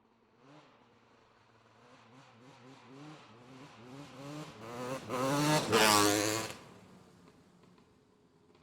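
Racing motorcycle approaching and passing by. Its engine note rises in short repeated sweeps as it grows louder, is loudest a little past halfway, then drops suddenly in pitch and level and fades away.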